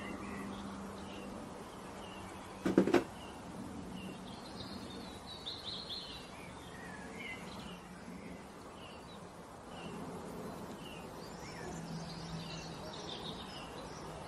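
Birds chirping in the background, short scattered calls throughout, over a faint steady hum. A brief clatter of two or three sharp knocks about three seconds in.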